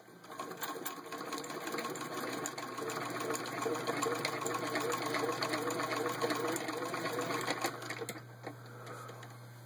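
1924 Singer 66-4 sewing machine stitching through six layers of denim. It runs at a steady rhythm, then slows and stops near the end.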